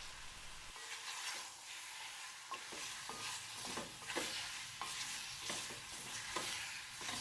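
Curry chicken frying in a little olive oil in a pot, sizzling steadily, with a spoon scraping and knocking against the pot several times as the meat is stirred.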